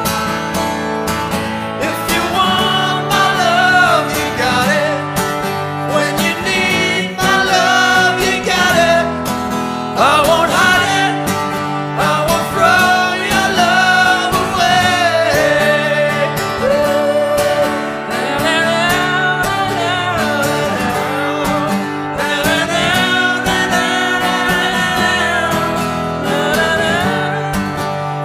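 Background music: a song with a singing voice over guitar accompaniment.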